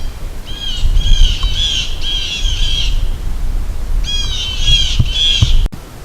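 A bird giving a series of harsh, squawking calls in two runs, about six quick notes and then, after a pause, three or four more.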